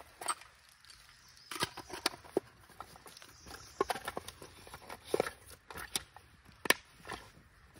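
Handling noise of a small fire kit being gone through: scattered clicks, taps and rustles as a small tin and a leather pouch are opened and their contents handled over a canvas bag.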